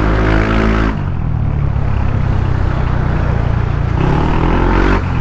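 Yamaha NMAX scooter's single-cylinder engine running through an aftermarket OPP Podium power pipe exhaust during a ride. A steady low exhaust note runs throughout, and twice, in the first second and again about four seconds in, a higher engine note comes in briefly.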